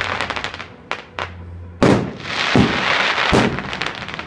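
Aerial fireworks shells bursting overhead: a dense crackle dies away in the first half-second, then comes a series of sharp bangs, the loudest just under two seconds in, with crackling spreading between the later bangs.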